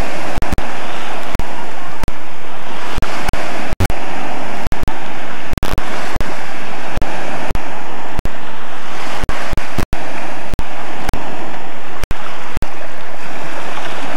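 Small waves breaking and washing up on a sandy shore: a steady, loud rush of surf, broken by frequent short clicks and dropouts.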